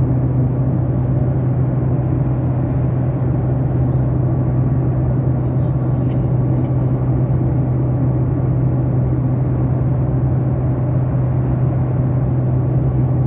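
Airliner cabin noise: a steady, unchanging engine and airflow drone with a strong low hum.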